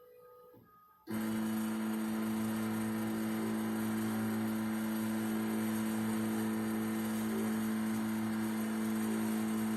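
CNC PCB-milling machine's motor switching on about a second in and running with a steady, even hum.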